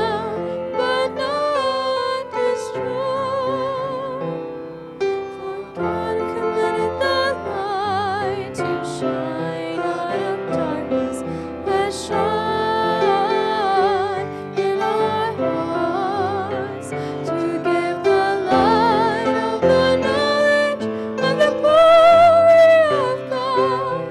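A song sung by young voices into microphones, accompanied on grand piano; the held notes waver with vibrato.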